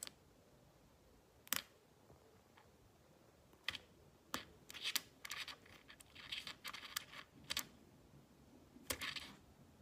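Faint, scattered clicks and short scratching noises, a few single ones at first and a denser run of them in the middle.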